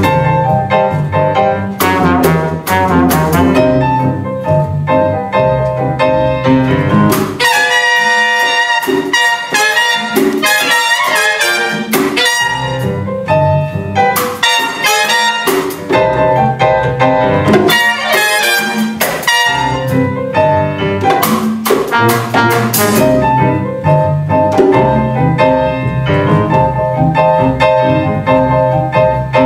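Jazz orchestra playing live: a horn section of saxophones, trombone and tuba over double bass, with frequent percussion strikes from congas and drums. About seven seconds in the low instruments drop out for a few seconds and the horns carry on alone, then the full band comes back in.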